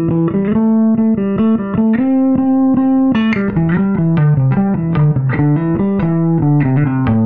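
G&L electric bass guitar played fingerstyle through an Orange bass combo amp: a busy line of quick plucked notes moving up and down in pitch.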